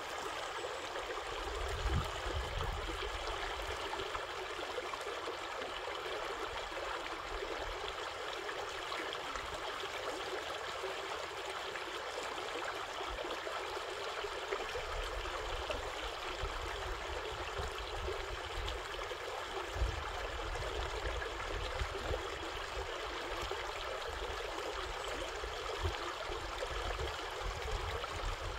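Shallow, rocky creek flowing steadily, water running over a riffle of stones in an even rush, with occasional low rumbles underneath.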